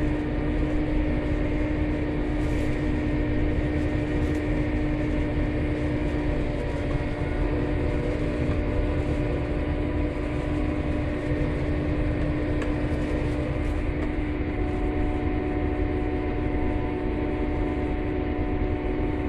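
Steady engine hum and road drone inside the cab of a work vehicle driving through heavy rain.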